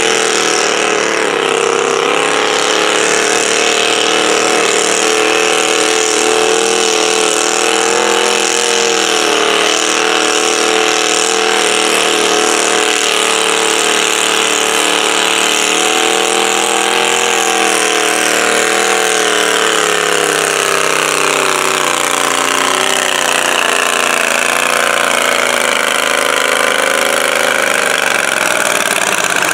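Super stock garden tractor engine running hard under load as it drags a weight-transfer sled down the pulling track. The engine note wavers through the run, and its pitch sags and recovers near the end as the pull bogs down.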